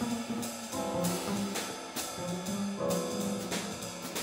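Small jazz combo playing: keyboard, double bass and drum kit, with pitched notes moving in the low-middle register under regular cymbal strokes. The alto saxophone is not playing.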